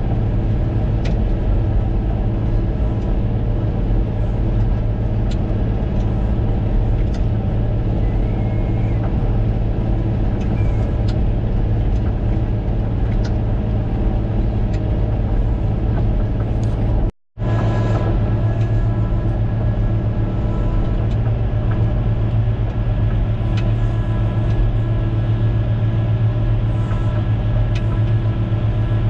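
Caterpillar motor grader's diesel engine running steadily, heard from inside the cab as the machine works along cutting a channel. The sound drops out completely for a split second about two-thirds of the way through.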